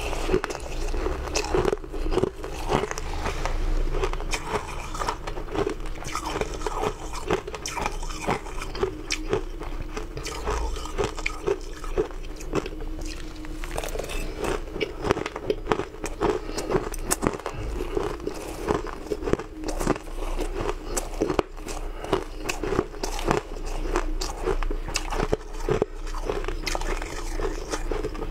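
Shaved ice being chewed and crunched close to the microphone: a dense, continuous run of crisp crunches.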